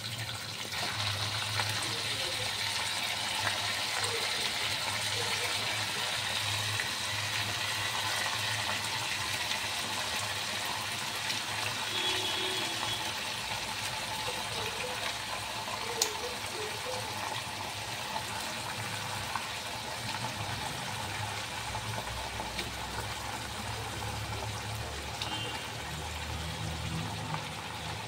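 Chicken intestines and meat frying in hot oil in a wok: a steady sizzle, with a few light clicks of a metal spatula against the pan.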